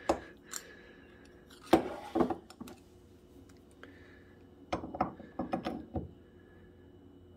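Metal engine parts knocking and clinking as they are handled: a sharp knock about two seconds in, then a cluster of lighter clinks at about five to six seconds as the crankshaft and flywheel are set into the aluminium crankcase of a small model engine.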